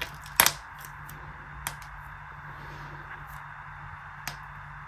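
A few sharp clicks and taps as a hair-dye tube and its applicator bottle are handled, over a steady low hum. The loudest click comes about half a second in, with single ones later.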